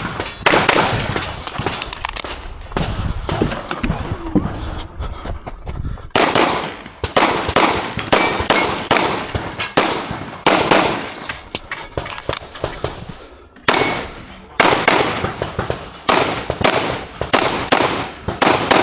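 Pistol shots fired in quick strings of two to four, with short pauses between the strings, each shot echoing briefly: a competitor shooting through an IPSC practical-shooting stage.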